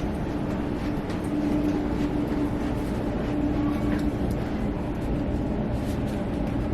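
Steady low rumble of a moving vehicle heard from inside, with a humming tone that swells and fades every second or so.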